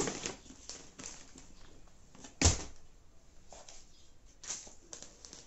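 Cardboard laptop box and packaging being handled and moved, with light rustles and knocks. One sharp, loud thump about two and a half seconds in as something is set down.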